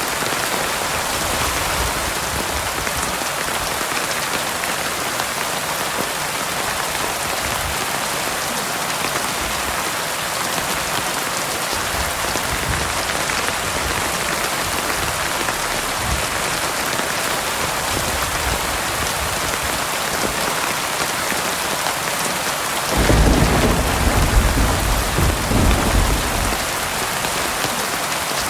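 Heavy rain falling steadily. About 23 seconds in, a low roll of thunder rumbles over it for several seconds.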